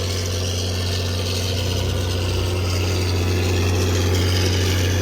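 Tractor engine running steadily under load while pulling a round baler through straw, a constant low drone.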